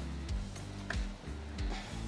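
Background music with a steady bass line.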